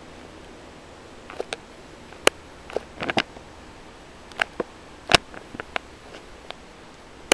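Scattered light clicks and taps, about a dozen at uneven intervals, over a steady hiss: handling noise from a phone held close to a door while filming.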